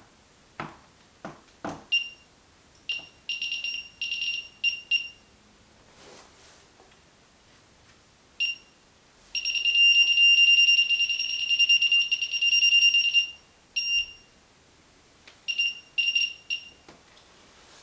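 Handheld RF signal detector beeping at a steady high pitch. It gives short beeps, then a long run of rapid beeping lasting about four seconds, then short beeps again. This is the detector picking up a radio signal source at that spot.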